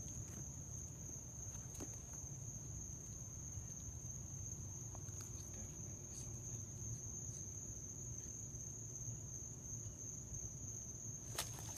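Crickets chirring at night, a steady high-pitched drone, with a few faint clicks.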